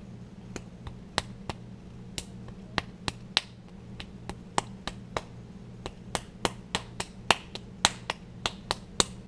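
Cupped palms slapping a lump of soft clay to shape it into a ball for a pinch pot: a long, irregular run of sharp slaps, coming faster in the second half.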